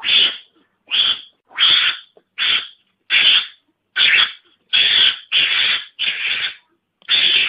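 Mongoose (garangan) calls played as a hunting lure: a quick series of about ten short, raspy cries, each under half a second, coming roughly every two-thirds of a second.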